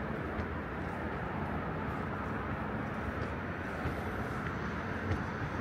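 City street ambience: a steady low rumble of traffic, with a few faint clicks now and then.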